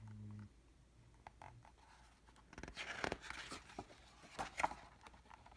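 Pages of a picture book being turned by hand: paper rustling and sliding, a longer rustle about two and a half seconds in and a shorter one near four and a half seconds.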